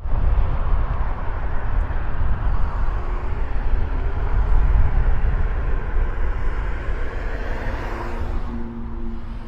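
Steady outdoor rumble of vehicle traffic and engines, heaviest in the low end, with a motor's hum standing out as a few steady tones near the end.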